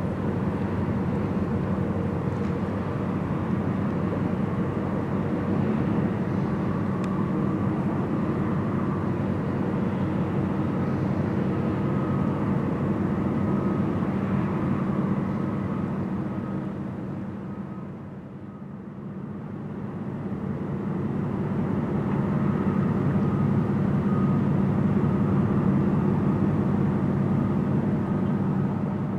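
Steady low diesel engine drone of a vessel on the river, dipping about two-thirds of the way through and then swelling again.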